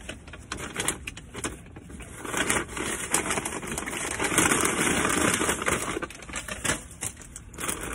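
Dense, irregular crackling and crinkling from a bag of Lay's potato chips, loudest in the middle.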